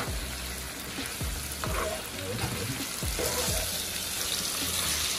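Pieces of seafood frying in hot oil in a pan, a steady sizzle with a few brief louder sounds mixed in.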